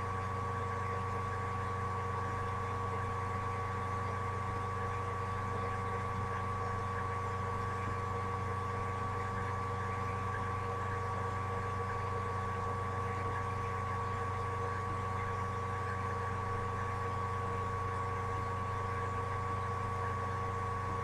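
Steady, unchanging electrical hum with a constant high whine, the fan and electronics noise of a computer picked up by a webcam's built-in microphone.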